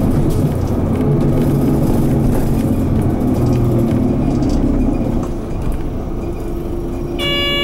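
Mitsubishi Fuso Aero Midi MK bus's 6M61 six-cylinder diesel engine running under way, heard from inside the bus. It gets somewhat quieter about five seconds in. A steady electronic tone starts near the end.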